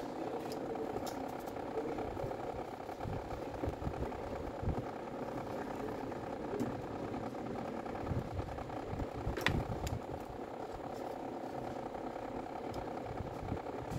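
Steady machine hum with faint clicks and rustles of a sander's motor stator and its lead wires being handled in gloved hands, and one sharp click about nine and a half seconds in.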